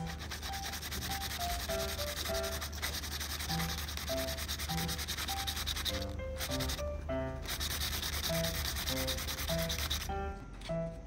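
Paper makeup-brush cutout rubbed quickly back and forth against paper, a fast scratchy brushing. It pauses for about a second partway through and stops near the end.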